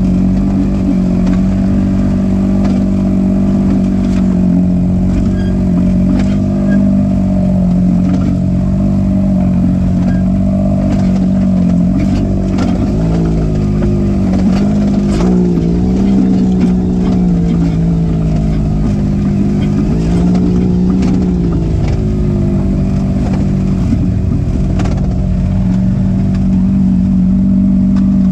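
Side-by-side UTV engine running at low speed while crawling over a rocky trail, its pitch rising briefly a few times in the middle as the throttle is worked. Occasional short knocks from rocks and the chassis come through.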